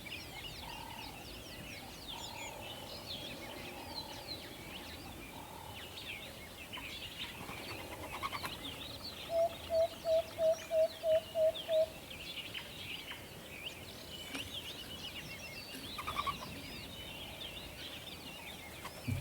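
Owl giving a quick, even series of about eight short hoots midway, over a forest ambience full of high, thin chirps from other birds or insects.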